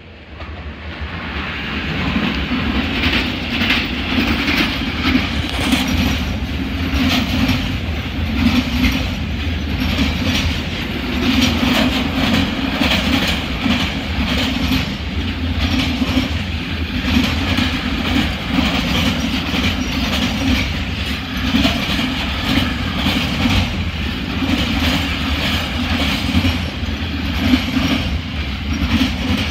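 ČD Cargo freight train of container flat wagons passing close by: a steady, loud rolling rumble with quick repeated clicking of wheels over the rail joints. It swells over the first couple of seconds as the train arrives.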